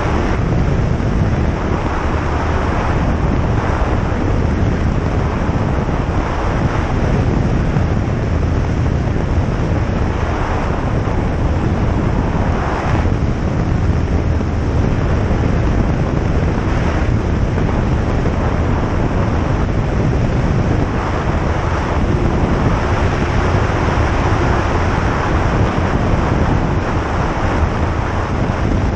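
Cabin noise of a single-engine light aircraft in flight: the engine and propeller drone steadily under heavy wind noise.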